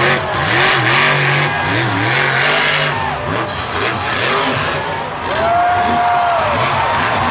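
Monster truck engines revving hard and unevenly, the pitch surging up and down, over the noise of an arena crowd, with a brief high whine about five and a half seconds in.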